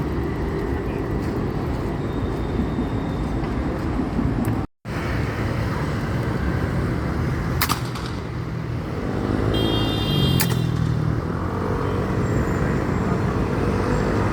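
Steady outdoor rumble with a brief dropout to silence about a third of the way in. In the second half, two sharp cracks come about three seconds apart.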